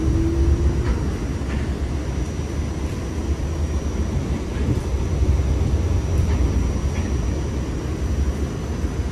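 Steady low rumble heard inside a Staten Island Railway train car as it rolls out along the platform, with a few faint clicks.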